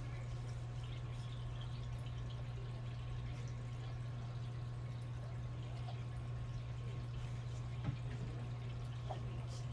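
Steady low hum with a faint high steady tone above it, and faint scattered small ticks; one sharper click comes about eight seconds in.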